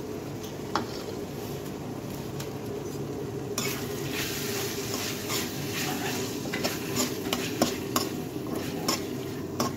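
Green peas and onion-tomato masala sizzling in a steel kadhai, stirred with a perforated metal spatula that clicks and scrapes against the pan. The sizzle and scraping start about three and a half seconds in, over a steady low hum.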